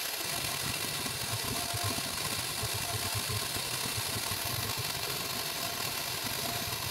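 The spindle of a Chinese 6040 CNC mill runs steadily while a 10-degree V-cutter engraves isolation traces into a copper-clad PCB. It gives an even hiss over a fluttering low rumble.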